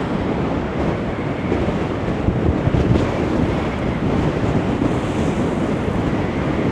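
Strong wind buffeting the microphone: a loud, dense rumbling noise that holds steady with small gusty swells.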